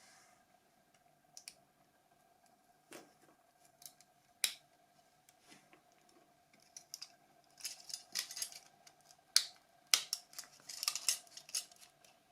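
Scattered small clicks and light clatter of the plastic and metal internal parts of a Nokia 5210 phone being taken apart by hand, with busier runs of clicking about eight and eleven seconds in. A faint steady hum sits underneath.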